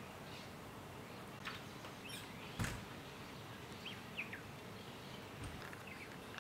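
Faint bird chirps, a few short calls scattered over a quiet outdoor background, with a single sharp click about two and a half seconds in.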